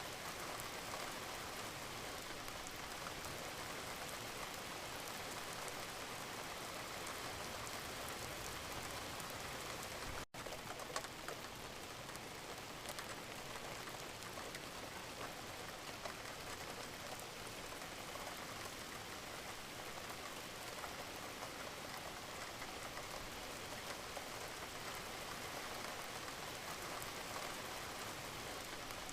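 Steady rain falling, an even hiss of many small drops pattering on a surface. The sound cuts out for a split second about ten seconds in, then carries on unchanged.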